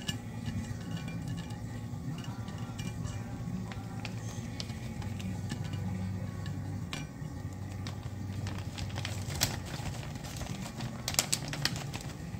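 Kitchen tongs clicking against a plate and dried squid as the squid is moved about, over background music. The sharpest clicks come in a quick cluster near the end.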